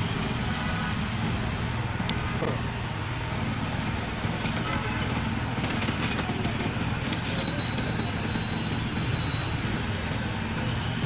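Steady road traffic rumble, with faint voices in the background.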